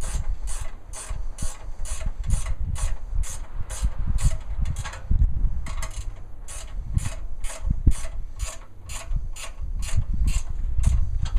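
Ratchet wrench clicking steadily at about three clicks a second as the luggage rack's hex head screws and lock nuts are tightened, over low handling rumble.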